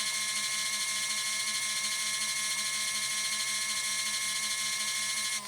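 Small 12-volt electric motor of a portable foldable washing machine's spin dryer running at a steady high whine, spinning water out of the wash, and starting to slow right at the end.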